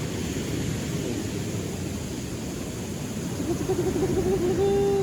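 Wind on the microphone and surf. About three and a half seconds in, a steady droning tone joins, wavering at first and then holding its pitch.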